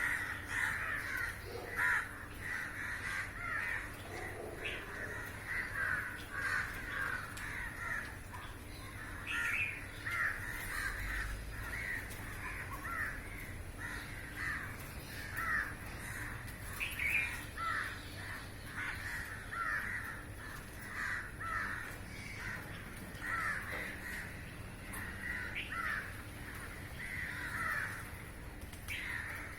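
A flock of crows cawing: many short caws, overlapping and following one another without a break.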